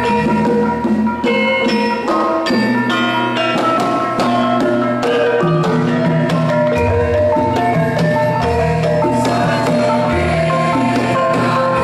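Javanese gamelan playing: rows of bronze kettle gongs (bonang) and metallophones struck with mallets in quick, interlocking patterns, ringing notes over deep low gong tones that come and go.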